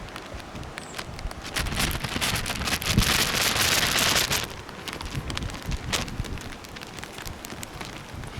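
Rain falling, with a noisy patter of scattered drop clicks, growing heavier and louder for a few seconds around the middle before easing off.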